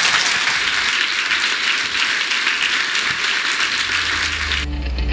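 A large audience applauding. Music with a heavy low bass line fades in near the end, and the applause cuts off abruptly just before the end.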